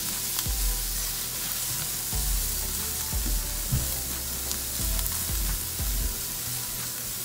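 Sliced onions, garlic and black pepper sizzling as they sauté in a little sesame oil in a stainless steel pan, stirred with a silicone spatula that scrapes and bumps against the pan now and then.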